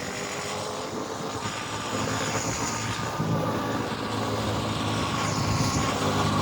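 Road traffic with vehicle engines running, growing gradually louder toward the end.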